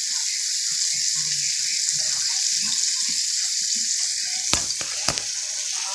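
Flour-dredged food frying in hot oil in a frying pan, a steady sizzle. Near the end come two sharp clicks about half a second apart.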